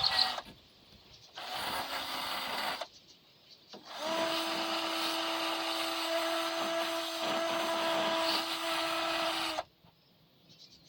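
Electric drill spinning a small wire brush against a rusty Walbro LMT carburetor part, scrubbing out rust and corrosion. It runs three times: a brief burst, one of about a second and a half, then a steady run of about five seconds that stops suddenly.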